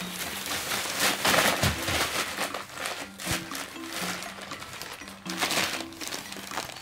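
Crumpled packing paper rustling and crinkling as it is gathered up and a kitten plays in it, with louder bursts of rustling about a second in and again near the end, over light background music.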